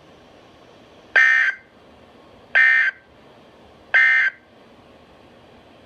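Emergency Alert System end-of-message signal: three short, harsh bursts of SAME digital data tones, about 1.4 seconds apart. Three such bursts after the voice message mark the end of the alert.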